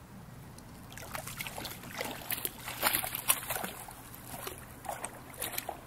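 Water splashing and sloshing around a plastic kayak in irregular bursts, starting about a second in.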